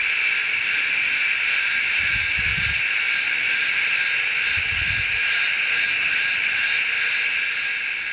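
A steady, loud chorus of insects chirring in a dense high band with a fine pulsing. Two brief low rumbles come through about two and five seconds in.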